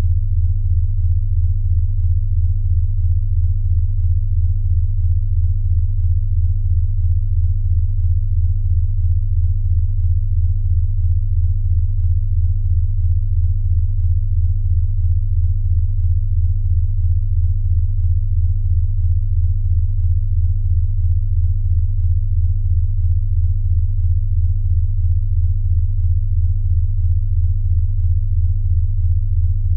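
Steady, electronically generated low tone around 100 Hz, pulsing evenly several times a second: a sound-therapy tone track meant to be played on headphones against snoring.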